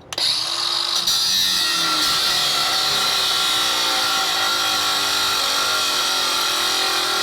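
A handheld power cutting tool starts suddenly and runs steadily with a high whine, cutting into the top of a seized brake-line fitting.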